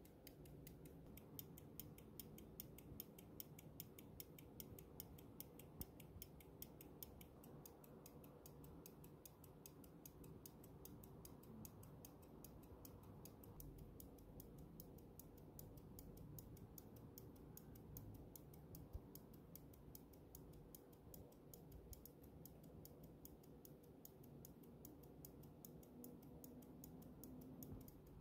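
Faint, quick, even ticking of a circa-1772 John Holmes verge fusee pocket watch running, its verge escapement beating with the movement open.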